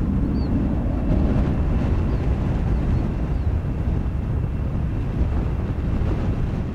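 Low, steady rumble of jet aircraft engines, with wind buffeting the microphone.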